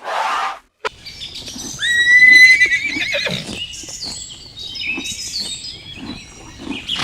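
Horse whinnying: one loud, high call about two seconds in that quavers as it fades.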